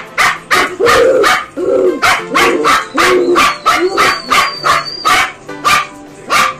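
Puppies barking over and over in short, sharp barks, about two a second.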